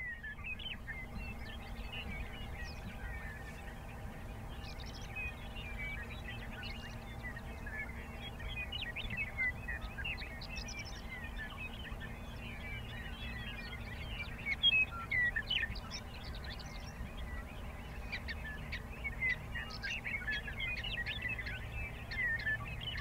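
Grassland ambience of many short, high chirping calls overlapping throughout, over a steady low hum.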